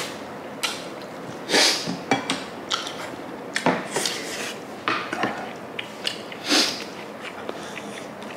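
Close-miked eating sounds: a man chewing a spicy pan-fried kimchi dumpling, with irregular wet mouth smacks and clicks, and chopsticks tapping on dishes now and then.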